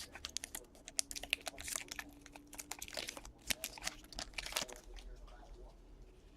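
Trading cards and foil pack wrappers being handled: irregular light clicks, crinkles and rustling, thinning out about five seconds in.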